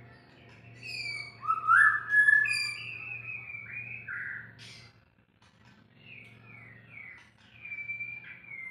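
White-rumped shama singing: loud, varied whistled phrases with rising and falling notes. After a short pause about five seconds in, it gives a run of short down-slurred whistles.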